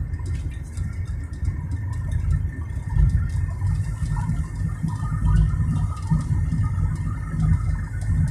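Inside a moving car: a steady low rumble of engine and tyres on the road, swelling and easing slightly.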